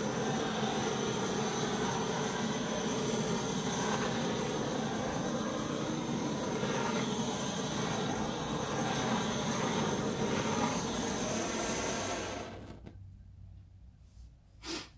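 Heat gun blowing hot air over wet acrylic pour paint to pop air bubbles and draw up silicone cells: a steady rush of air with a high motor whine, switched off abruptly about twelve seconds in. One short knock near the end.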